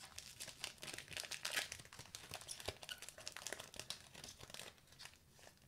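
Faint crinkling and crackling of a trading card pack wrapper being handled, a run of quick irregular crackles that thins out near the end.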